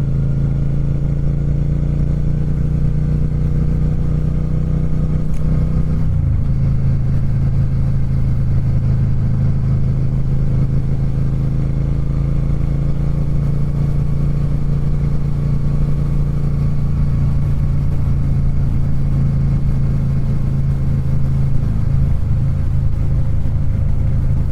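Triumph Speed Twin 1200's 1200 cc parallel-twin engine running at a steady highway cruise, heard muffled from inside a saddlebag along with wind and road noise. The engine note shifts slightly about six seconds in.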